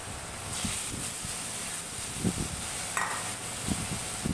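Spice gravy boiling and sizzling in a stainless steel kadai as fried potato cubes are tipped in: a steady hiss that starts about half a second in, with a few soft knocks of potatoes and bowl against the pan.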